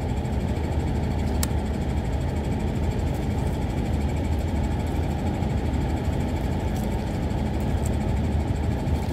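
Steady low rumble of a truck engine running. A single short click sounds about a second and a half in.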